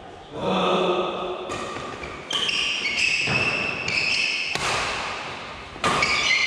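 Badminton rally: rackets striking the shuttlecock about six times, roughly once a second, each hit a sharp smack with a short ringing tail in the hall.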